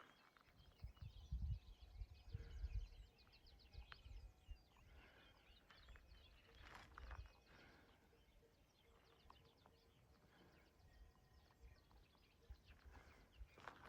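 Quiet outdoor ambience: faint, rapid bird chirps, a few low thuds in the first three seconds, and scattered soft knocks, the kind footsteps on a trail make.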